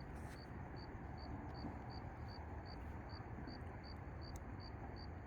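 A cricket chirping faintly and steadily, short high chirps about two and a half times a second, over a steady low background hiss.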